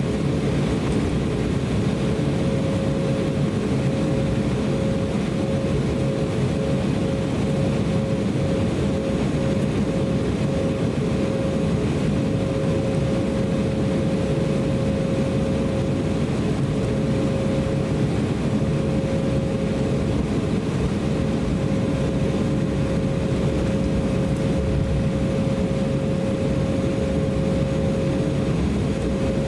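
Cabin noise inside an Embraer E190 airliner while taxiing: its GE CF34-10E turbofan engines running steadily at taxi power, a steady low rumble and hiss with one constant whine above it.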